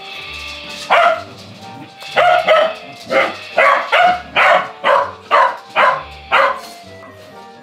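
Corgi barking in a rapid run of about a dozen short, sharp barks.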